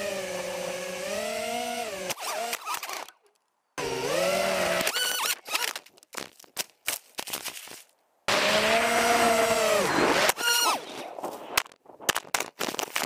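A small FPV quadcopter's brushless motors and propellers whine, the pitch rising and falling with throttle, heard from a camera on the drone. The whine comes in three stretches, roughly two seconds, one second and two seconds long, each cut off suddenly by silence with a few scattered clicks.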